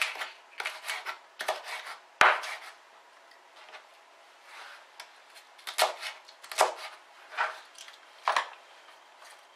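Chef's knife chopping cabbage leaves on a plastic cutting board. There is a run of chops in the first two seconds, the loudest at the end of it, then a pause and four single knife strokes under a second apart.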